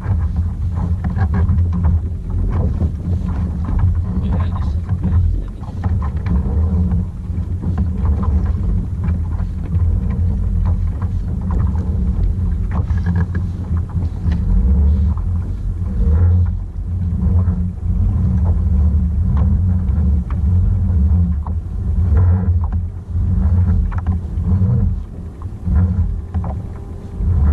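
Wind buffeting the microphone in gusts, a loud, uneven low rumble that swells and dips.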